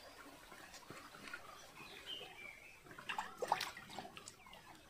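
Water gurgling and splashing as a small pot is dipped into a shallow rock pool, a short burst about three seconds in, over faint bird calls.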